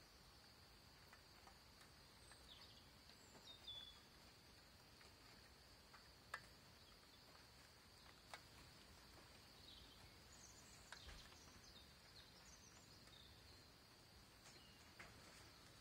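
Faint outdoor ambience: a steady high-pitched whine with a few scattered short chirps and occasional faint clicks.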